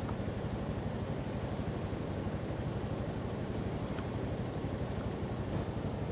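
Fishing boat's engine running steadily, a constant low drone under an even wash of noise.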